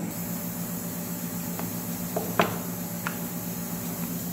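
Wooden rolling pin rolling chapati dough on a granite counter, with a few light knocks of the pin on the stone, the loudest about halfway through. A steady low hum runs underneath.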